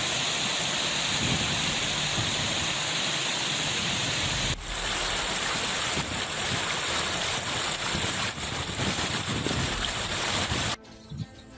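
Steady rush of flowing floodwater. There is a brief dip about four and a half seconds in, and it cuts off abruptly near the end.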